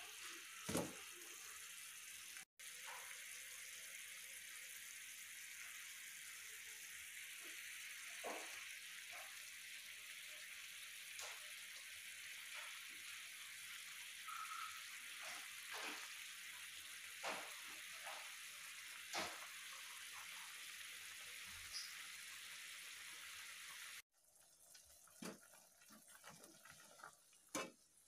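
Water boiling in a shallow pan around a block of instant noodles: a faint steady hiss with scattered small pops. Near the end the hiss drops away and a spatula clicks against the pan a few times.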